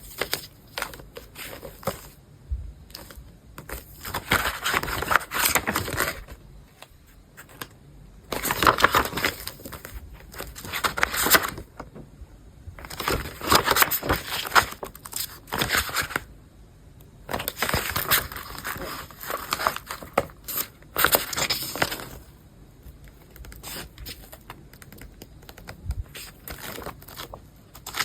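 Packaging being crinkled and torn open by hand, in several crackly bursts with short pauses of quieter handling between them.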